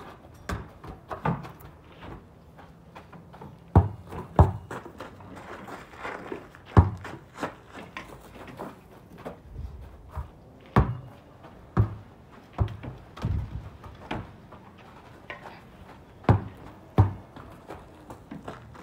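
A basketball bouncing on hard ground as it is played: irregular sharp thuds, a few seconds apart or in pairs about half a second apart, with the loudest strikes around the middle.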